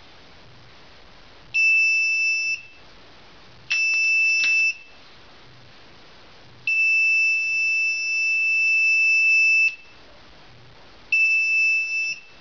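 Piezo buzzer of an Arduino laser tripwire alarm sounding a steady high-pitched tone four times: about a second, a second, a long three seconds, then a second again. Each tone is the alarm tripping when the laser beam is broken.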